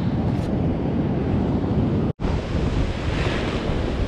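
Surf washing up the beach with wind buffeting the microphone, a steady noisy rush strongest in the low end. The sound drops out for an instant about halfway through.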